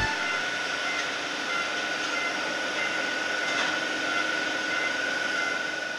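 Distant airport apron noise: a steady rush of engine noise with a thin, high, steady whine, beginning to fade out right at the end.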